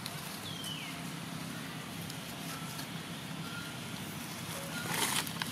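Steady low hum of a distant engine, with one short falling squeak about half a second in and a brief rustle near the end.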